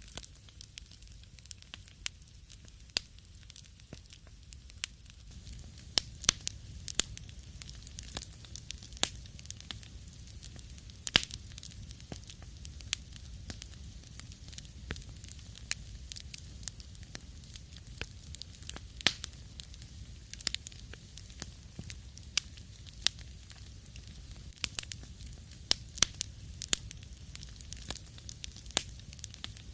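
Wood fire crackling in a fireplace: irregular sharp pops and snaps, several a second, over a low steady rumble, growing a little fuller about five seconds in.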